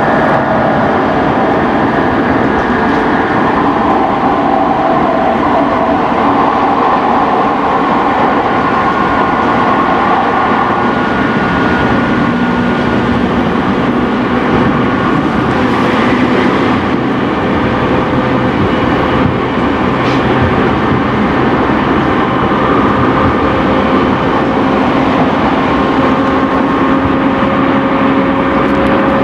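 Running noise inside an E217 series electric train's motor car at speed: a continuous rumble of wheels on rail with steady tones from the traction motors and gearing that change pitch now and then.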